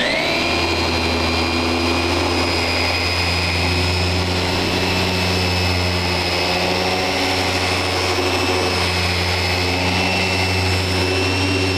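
Festool Rotex sander in its gear-driven Rotex mode, sanding black walnut with 40-grit paper. The motor comes up to speed at the very start, then gives a steady high whine over a low hum.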